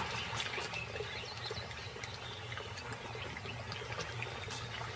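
Soft, steady wet trickling and lapping of water, with faint scattered ticks.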